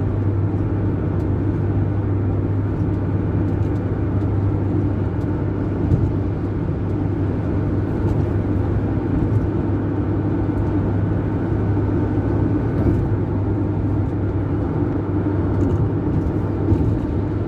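Steady engine drone and tyre and road noise of a vehicle driving at a constant speed, heard from inside the cabin, with a constant low hum.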